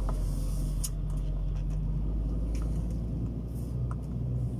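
Lorry cab interior while driving slowly: the diesel engine and drivetrain make a steady low rumble, with a few light clicks and rattles from the cab.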